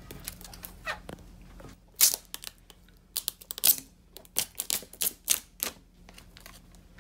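Plastic shrink-wrap on a sealed smartphone box crinkling as the box is handled and turned over. It comes as a run of short, sharp crackles and ticks starting about two seconds in.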